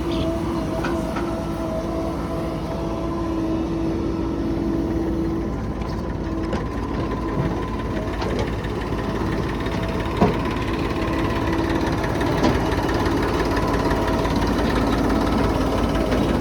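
Heavy diesel engine of the earthmoving machinery running steadily, with a single sharp clank about ten seconds in.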